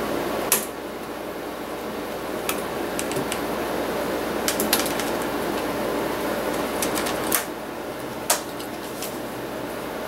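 Irregular sharp plastic clicks and taps as a laptop's LCD panel is pried and worked loose from its lid with a plastic pry tool, over a steady low hum. The loudest clicks come about half a second in and twice near the end.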